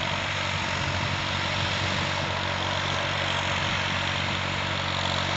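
Valtra A950 tractor engine running steadily under load as it pulls a 14-disc intermediate disc harrow through the soil.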